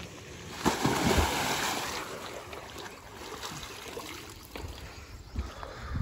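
Water splashing in a swimming pool: a sudden splash about a second in that fades away over the next second or so, over a low background of moving water.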